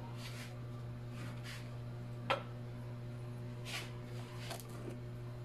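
Wooden spatula stirring miso broth in a nonstick wok: a few soft scrapes and swishes, and one sharp knock a little over two seconds in, over a steady low hum.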